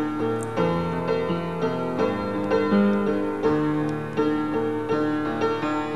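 Instrumental background music: a melody of evenly paced notes, about two a second.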